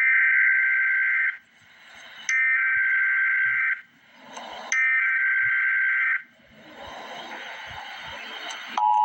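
Emergency Alert System SAME header: three identical bursts of shrill, rapidly chattering digital data tones, each about a second and a half long with about a second's pause between, coding the start of an alert message. Near the end the steady two-tone EAS attention signal begins.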